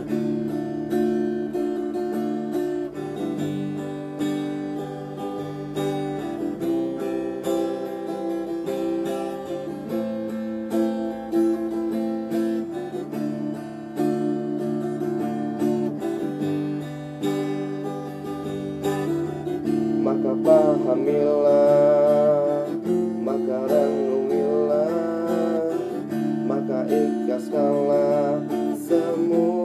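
Acoustic guitar strummed in steady chords, with a man's voice singing along from about two-thirds of the way through.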